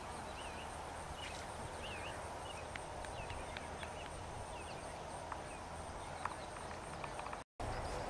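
Faint outdoor ambience: a steady background hiss with scattered short, high chirps and a few light clicks. The sound drops out for a moment near the end.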